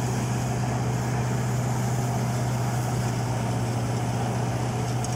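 Tractor-driven peanut thresher running steadily while peanut plants are fed into it: a constant low engine drone under an even rushing noise from the machine.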